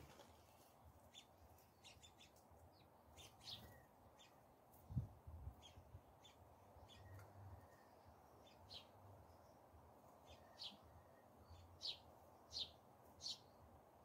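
Faint, short, high chirps of house sparrows, scattered through and coming faster and louder near the end, with one soft low thump about five seconds in.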